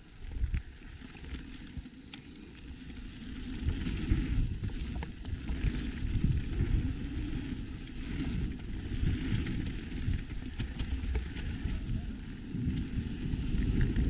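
Mountain bike rolling down a dirt trail: tyre and trail rumble mixed with wind noise on the camera's microphone, getting louder about four seconds in, with a few light clicks and rattles.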